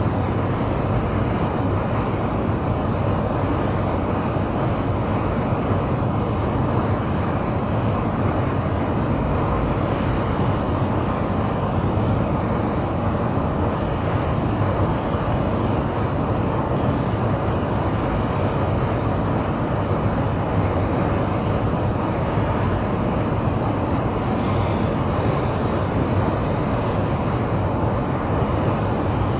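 Steady ambient noise of an underground metro station platform: a continuous low hum with no distinct events.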